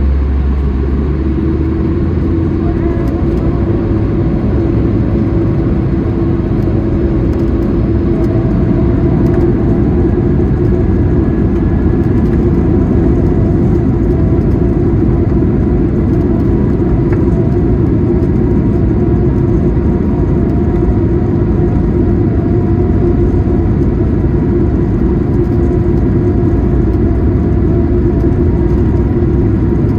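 Airbus A220-300's Pratt & Whitney PW1500G geared turbofan engines at high thrust, heard inside the cabin: loud, steady engine noise with a held hum that comes in about a second in.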